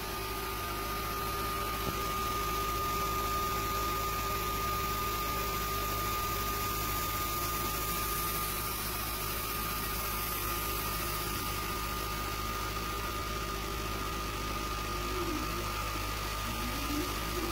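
Sculpfun S30 Ultra diode laser engraver running as its head moves over plywood, cutting: a steady machine hum with a constant high whine, and a lower tone that wavers and bends up and down near the end as the head changes its motion.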